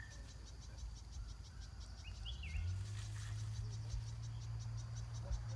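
Insects chirping in a fast, even pulse of about five short high calls a second. A low steady hum comes in about halfway through.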